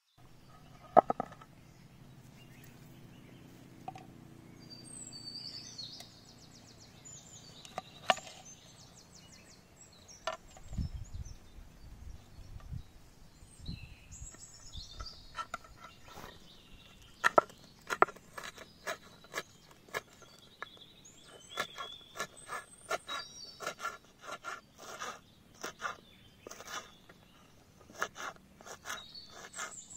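Kitchen knife chopping green chillies on a wooden cutting board: a few separate knocks at first, then from about halfway a steady run of sharp chopping strokes, about two to three a second. Birds chirp in the background.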